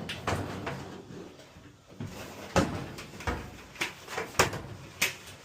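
Metal knocks and clunks of a Samsung dryer's drum being worked loose and lifted out of the cabinet, five or so separate bangs in the second half.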